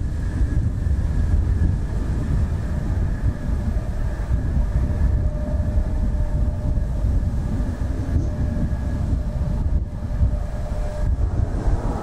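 Mitsubishi F-2B fighter's single turbofan jet engine running during its landing roll: a continuous deep jet rumble with a steady high whine over it.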